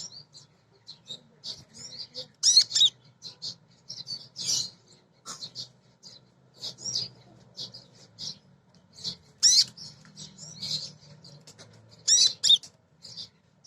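Female kolibri ninja sunbird calling: sharp, high-pitched chirps and short rapid twittering bursts in irregular bouts, a few of them much louder than the rest.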